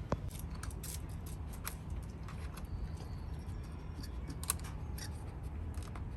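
Miniature poodle crunching ice: a run of irregular, sharp crunches and clicks as it chews.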